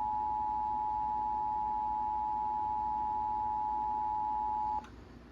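Emergency Alert System two-tone attention signal: a loud, steady dual tone just under 1 kHz, the signal that announces an emergency alert, here a tornado warning. It cuts off suddenly near the end, leaving faint hiss.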